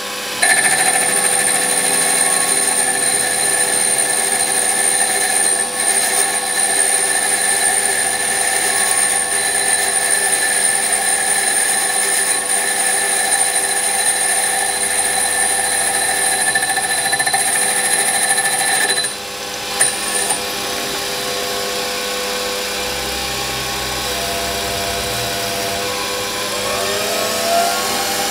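Warco WM180 mini lathe running with a steady whine while it turns the outer diameter of a cast steam-engine flywheel with continuous, no longer interrupted finishing cuts. About 19 seconds in the sound drops to a quieter steady running, with a brief rising whine near the end.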